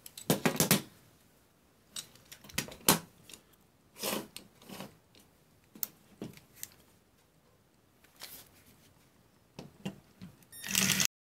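Light clicks and knocks from a plastic circuit breaker being handled and set down on a workbench. Near the end a cordless drill/driver runs briefly on one of the breaker's case screws, and the sound cuts off suddenly.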